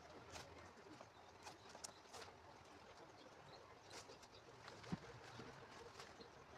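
Near silence with faint scattered clicks and ticks, and one light knock about five seconds in.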